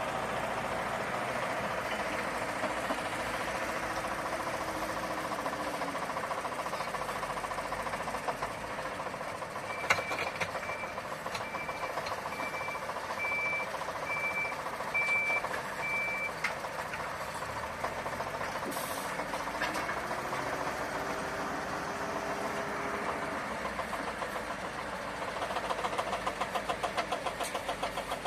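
Mobile soil screening machine and engine-driven heavy equipment running steadily, with a faint whine that rises and falls twice. Midway a vehicle's reversing alarm beeps about seven times, once a second.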